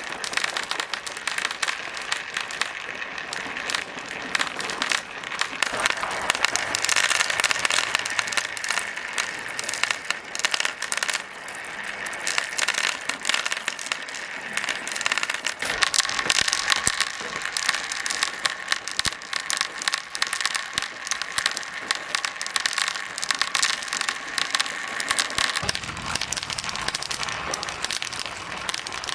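Marbles rolling and clattering down plastic marble-run tracks: a dense stream of small clicks and rattles over a steady rolling whir.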